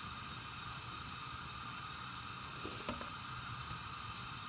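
Bacon sizzling in a hot frying pan: a steady hiss, with a faint click about three seconds in.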